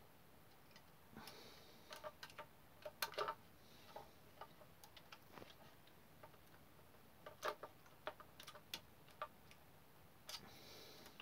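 Faint, irregular clicks and taps with a couple of brief rustles: hands pressing taped servo cables into a 16mm-scale model tender's chassis.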